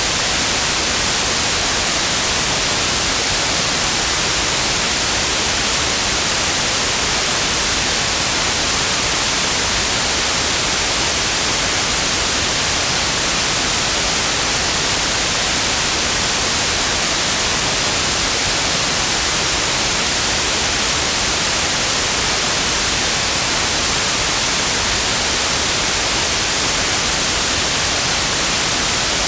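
Synthetic white noise: a steady, even hiss with no changes, strongest in the treble.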